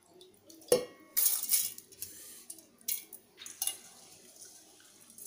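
Soaked rice tipped into a stainless-steel mixer-grinder jar. There is a sharp knock just under a second in, then a short rush of the wet grains sliding in, and two more clinks of the vessel against the jar.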